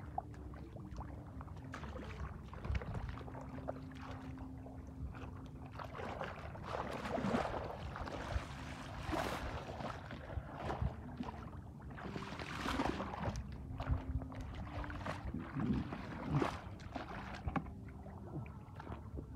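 Bare feet wading and splashing through shallow water and wet mud, with louder splashes in several separate surges, over a low steady hum.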